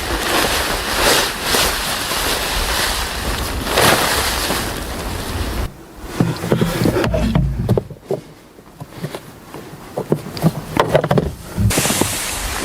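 Snowstorm wind blowing in strong gusts, easing about six seconds in to a quieter stretch of scattered crackles and low rumble, then rising again near the end.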